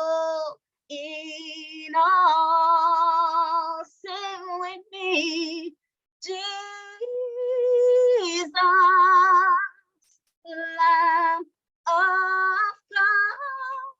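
A woman singing a slow worship song, holding long notes with vibrato in short phrases broken by brief silent gaps.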